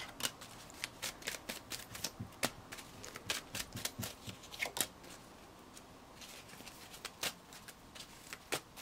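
Tarot cards being shuffled by hand: a quick run of light card snaps and flicks that thins out after about five seconds, with a few more taps near the end.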